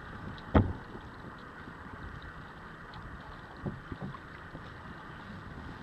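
Steady wind and water noise aboard a sailing kayak under way, with one sharp thump about half a second in and a few lighter knocks near the middle.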